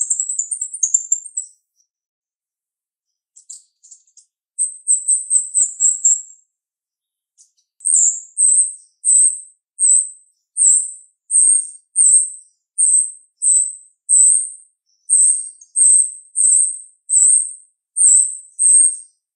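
Female jalak rio rio starling singing in sharp, high-pitched notes. A quick chattering run opens the passage and comes again about five seconds in. Then come single short notes, each falling slightly, repeated evenly about three every two seconds.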